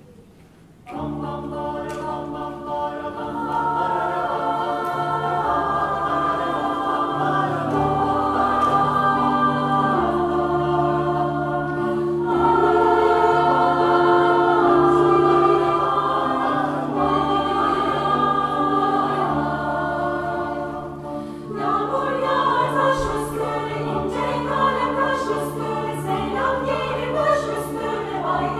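Polyphonic choir singing an arrangement of an anonymous Turkish folk song in sustained chords, with piano accompaniment. The music enters about a second in and eases briefly around two-thirds of the way through before the next phrase.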